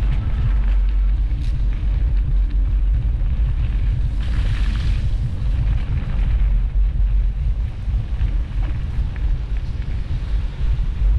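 Wind buffeting the microphone of a GoPro on a moving bicycle: a loud, steady low rumble that flutters in level, with a brief rush of hiss about four seconds in.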